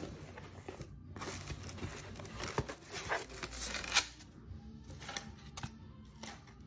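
A cardboard shipping box being unpacked by hand: flaps and padded packing material rustling and scraping, with a few sharp taps and knocks.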